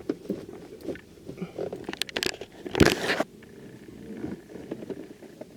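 A person biting and chewing crunchy food, with scattered crunches and clicks and a louder crunch about three seconds in.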